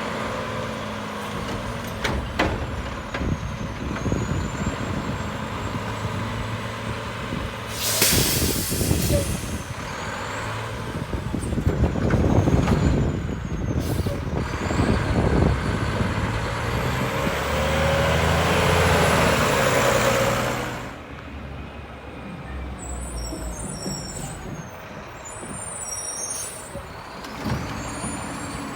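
Mack diesel garbage truck running, with sharp air hisses about eight seconds in and again near the middle, then a longer loud rush that cuts off suddenly about two-thirds of the way through.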